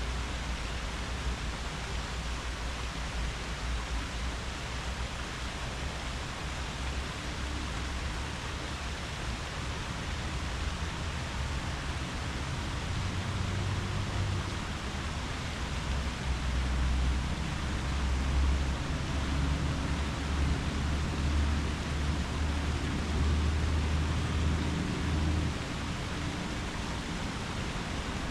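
Wind in tree leaves: a steady rustling hiss, joined by a low rumble that strengthens about halfway through and eases near the end.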